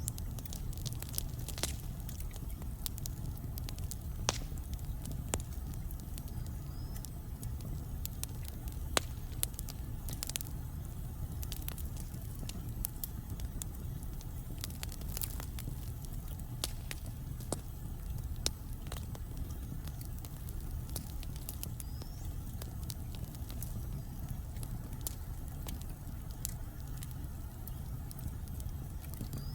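Wood fire burning in a fireplace: irregular sharp pops and crackles over a steady low rumble of the flames.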